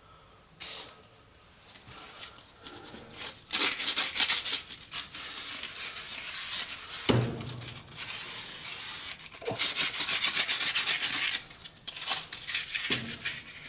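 Sandpaper rubbed back and forth by hand on the shaft of a Maytag dryer's belt tensioner arm, scouring off the gunk that froze the idler pulley. Quiet at first with a single tap, then quick scratchy strokes set in a few seconds in, broken by a couple of knocks, and stop near the end.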